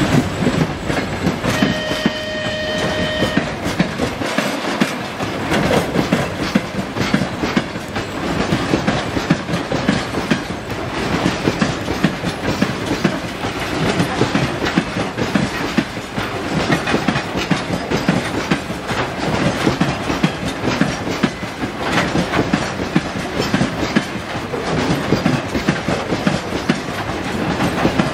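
Wheels of a long train of loaded oil-shale dump wagons clattering steadily over the rail joints as the wagons roll past. A short steady high tone sounds once, about two seconds in.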